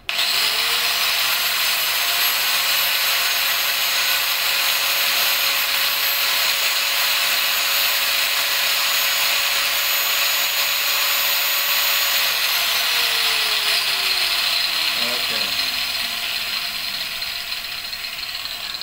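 Electric angle grinder pressed against the front axle bolt, running with a steady high whine as it spins the motorcycle's spoked wheel so that the heavy spot settles at the bottom for balancing. About twelve seconds in it is switched off and the whine falls away as the motor winds down.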